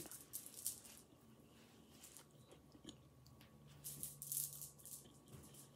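Close-up chewing of a mouthful of gyro wrap (pita with meat and vegetables): faint, moist mouth clicks and soft crunches, picking up about three and a half seconds in.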